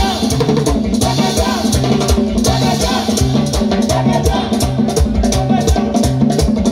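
Live band music: a drum kit keeping a steady, even beat over a repeating bass line.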